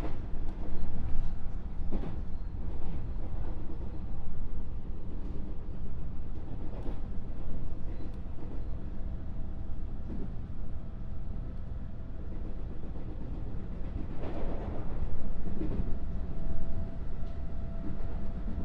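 Interior running noise of a JR West 221 series electric train's motor car: a steady low rumble of wheels on rail, with occasional knocks. A faint steady whine comes in near the end.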